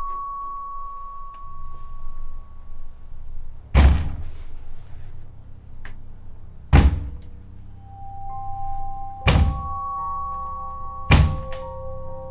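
Eerie horror-film score of sustained droning tones over a low rumble, broken by four loud, heavy booming thuds. The thuds come closer together, about three seconds apart at first and under two seconds apart near the end.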